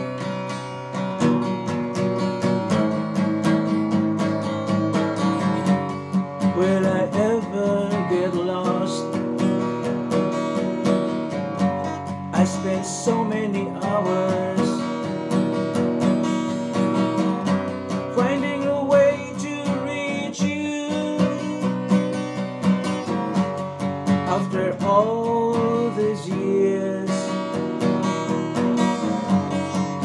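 Acoustic guitar strummed steadily, with a man singing a slow ballad over it in phrases a few seconds apart.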